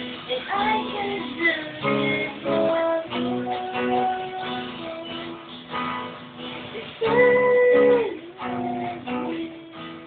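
A young woman singing a cover song to a strummed acoustic guitar. She holds one long high note about seven seconds in, the loudest moment.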